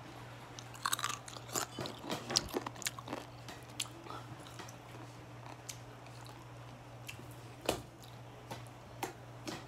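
Slime being pressed and squished by fingers, giving irregular sticky clicks and crackling pops. They come thickest in the first few seconds, then more sparsely, with one louder pop near the end.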